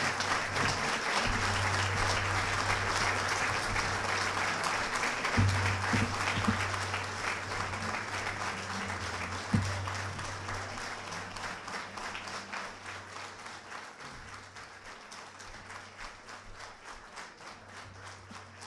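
Banquet audience applauding in a standing ovation, the clapping gradually dying down.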